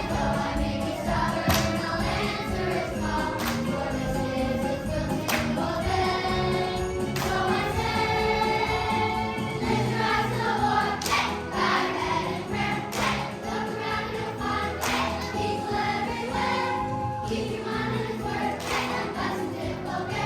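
Children's choir singing a worship song over a backing track, with a struck beat about every two seconds.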